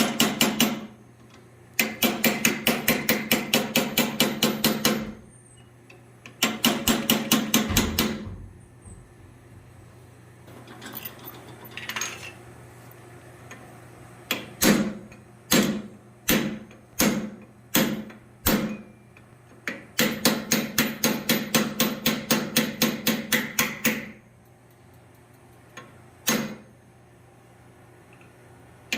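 Blacksmith's hammer striking hot steel on an anvil, forging a dragon head: runs of quick blows, about five a second, with ringing, broken by pauses and a few single strikes.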